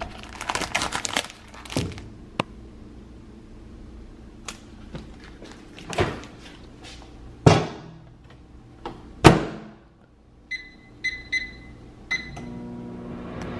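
Packaging of a frozen meal cup crinkling as it is handled, then a few heavy thunks, the loudest as the microwave door shuts. Four short microwave keypad beeps follow, and near the end the microwave oven starts running with a steady hum.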